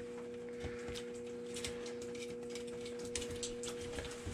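A steady, even hum of a few pure tones, with faint small clicks and scrapes of a knife working through a cod on a wooden table.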